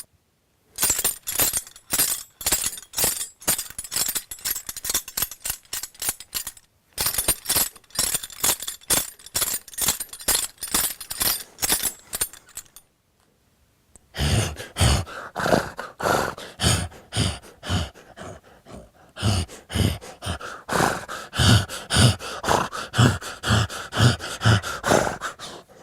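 Foley horse bridle and tack shaken in a rhythmic gait, metal fittings jingling and clinking rapidly. After a short pause about halfway through, a second run starts with heavier low thumps about twice a second under the jingling.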